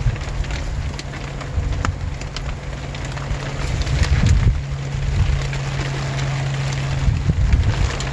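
Rain falling with scattered sharp raindrop ticks, while wind buffets the microphone in uneven low rumbles. A steady low hum comes in under it about halfway through.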